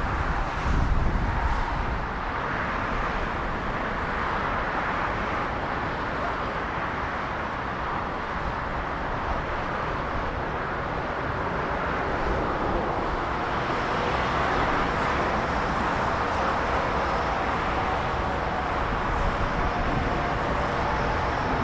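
Steady jet aircraft engine noise on an airport apron or taxiway, with a low rumbling surge in the first couple of seconds and a faint steady whine in the second half.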